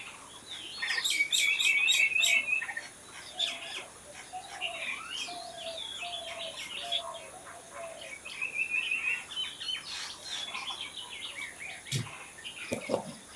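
Several wild birds singing and chirping at once, with overlapping calls. A short fast trill is repeated about a second in and again near the middle, and a run of lower whistled notes comes in between. Near the end there are two soft low knocks.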